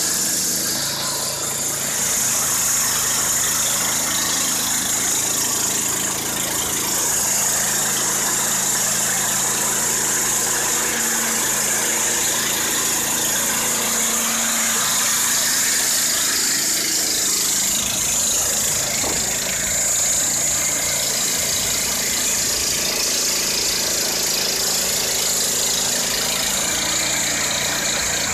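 Wood-Mizer LT-15 bandsaw mill running steadily on its 15 hp Kohler Pro-15 petrol engine while its band blade cuts through a large pine log, with a steady high hiss over the engine note.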